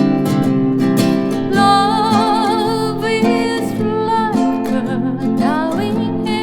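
Acoustic guitar accompaniment with a woman singing a slow ballad, holding long notes with vibrato from about a second and a half in.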